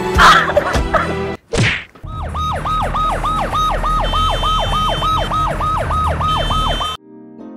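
A loud thump and a whoosh, then an emergency siren yelping rapidly, about three to four cycles a second, each a quick rise and longer fall, over a steady low hum. It cuts off suddenly near the end.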